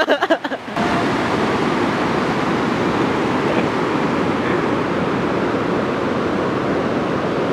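Steady rushing of a fast river over a stony bed. There are laughing voices in the first moment, cut off by the steady water noise.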